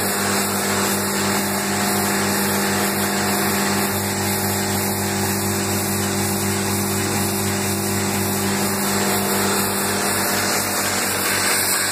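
Automated production-line machine running steadily, with a fast, even mechanical pulsing over a constant hum and hiss.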